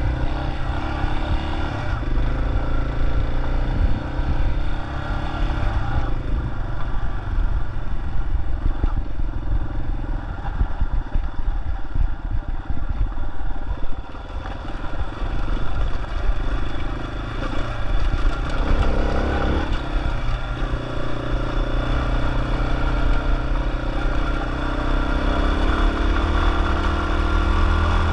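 Yamaha XT250's single-cylinder four-stroke engine running as the motorcycle rides along, its note shifting with throttle and gear changes partway through. Wind buffets the microphone underneath.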